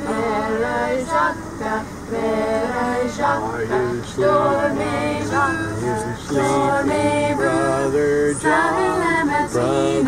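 A group of voices singing together with no instruments, women's voices to the fore.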